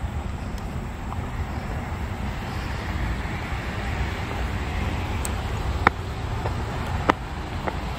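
Road traffic: a vehicle passing, its tyre and engine noise swelling and easing off over a few seconds above a steady low rumble. A few sharp clicks come near the end.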